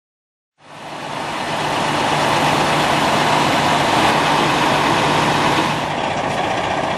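A large vehicle's engine running steadily at idle, with a constant low hum under broad engine noise. It fades in about half a second in.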